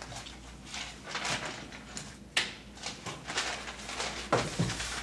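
Sheets of paper rustling and shuffling on a meeting table, in a string of short rustles, with a single sharp knock about two and a half seconds in.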